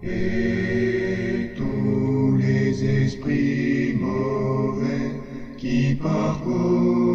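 Slow chanted vocal music: voices hold long notes that change pitch every second or so, with sung words audible in the consonants.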